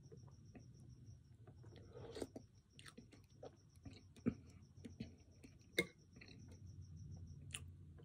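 Close-up eating sounds: a metal spoon clinking and scraping in a ceramic soup bowl, and soft chewing, with two sharper clinks just past the middle. A faint, fast, high ticking runs underneath until near the end.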